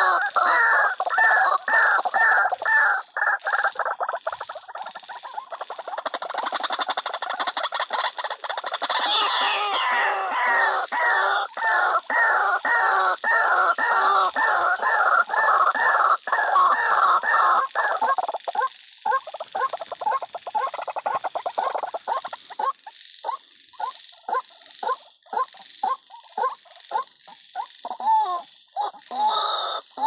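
White-breasted waterhen calling: a rhythmic, repeated croaking at about two calls a second, breaking into shorter, more spaced calls after about eighteen seconds.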